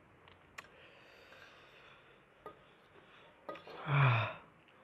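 A few faint clicks of a metal fork against a ceramic plate, then near the end a man's voiced sigh that falls in pitch.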